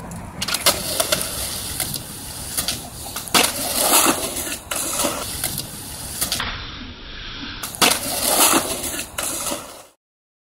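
Skateboard wheels rolling on concrete, with several sharp clacks of the board hitting the ground; the sound cuts off suddenly near the end.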